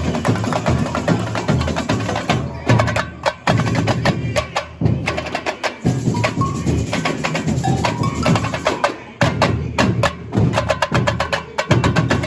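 Samba school bateria playing a fast samba batucada: a dense stream of sharp drum and rattle strikes over steady deep surdo beats, thinning briefly a couple of times.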